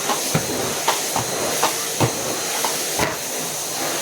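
Henry cylinder vacuum cleaner running with a steady high hiss and a faint whine, broken by about six short knocks as the floor tool is worked over the carpet.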